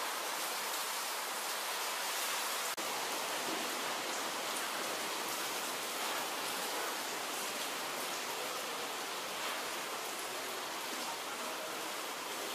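Heavy monsoon rain falling steadily, a dense even hiss.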